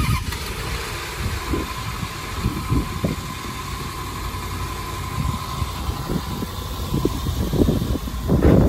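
Range Rover engine idling steadily just after being started on freshly changed spark plugs.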